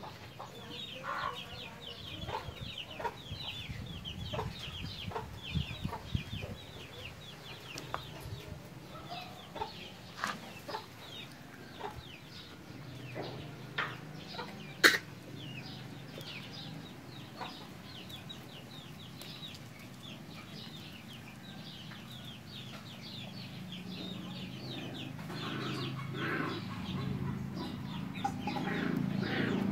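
Rapid high-pitched peeping calls of small young animals, several a second, each falling in pitch, with scattered sharp clicks and one loud click about fifteen seconds in. A low hum rises near the end.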